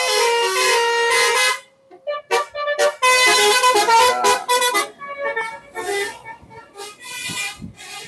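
Bus 'telolet Basuri' multi-tone musical horn playing a melody in quick stepped notes: loud held notes for about a second and a half, a short break, then a fast run of notes that fades after about five seconds.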